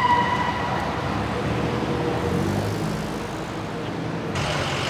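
An emergency-vehicle siren winding down, its falling tone fading out in the first half-second. It is followed by a steady rumble of idling vehicle engines and street traffic, and the background changes abruptly near the end.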